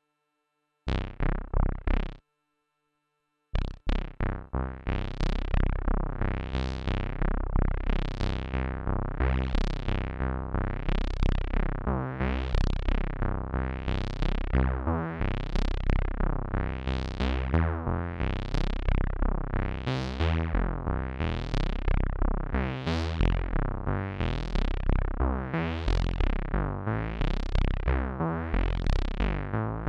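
Roland System-500 analogue modular synthesizer playing a fast sequenced line of low notes from a step sequencer. It sounds briefly about a second in, stops, then from about three and a half seconds plays continuously. Its tone brightens and dulls in a repeating cycle a little faster than once a second.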